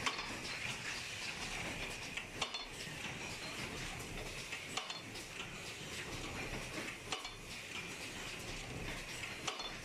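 Double-station crimped paper baking-cup forming machine running: a steady mechanical clatter with a sharp metallic clack about every two and a half seconds as the machine cycles.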